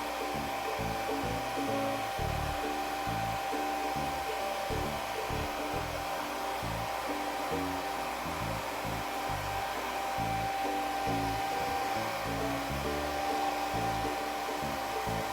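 Hair dryer running steadily, with a constant whine over its airflow hiss, as it dries a kitten's wet fur after a bath. Background music plays alongside.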